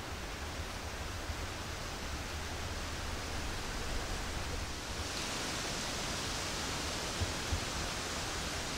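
Steady wind: a breeze hissing through the trees' leaves, with low wind rumble on the microphone. The hiss turns brighter about five seconds in.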